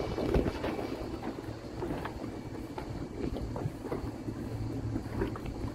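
Steady low machinery hum aboard a motor yacht, with light rubbing and knocking of cleaning on the deck and wind on the microphone.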